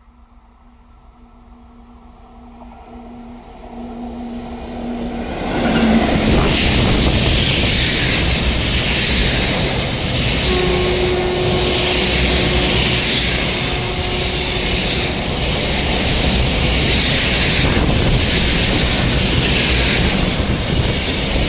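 A WAG-7 electric locomotive hauling a freight train of car-carrier wagons approaches, growing steadily louder, then runs past. The wagons' wheels roll on the rails with a rhythmic swell about every two seconds as each car goes by.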